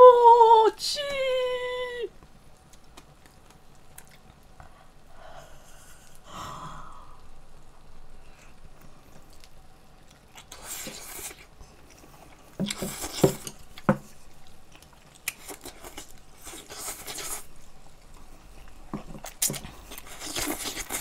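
A woman slurping instant ramyeon noodles from a bowl, in about five separate slurps of a second or less each through the second half. It opens with a short voiced exclamation that rises and falls in pitch.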